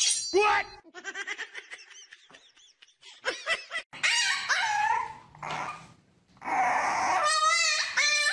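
Puppy yelping and barking in high-pitched, wavering calls, in two loud stretches in the second half after quieter short sounds at the start.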